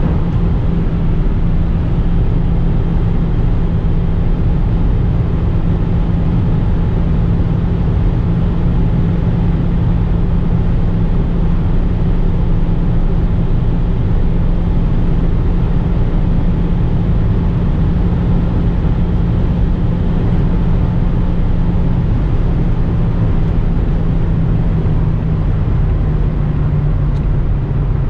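A 2006 Renault Grand Espace's 2.0-litre turbocharged inline-four petrol engine drones steadily as the car drives at a constant speed, over tyre and wind noise. The drone drops slightly in pitch in the last few seconds.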